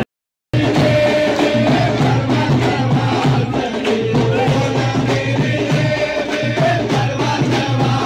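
Devotional Kali aarti sung into microphones, with the crowd singing along over steady drum and shaker percussion. The sound cuts out completely for about half a second at the start.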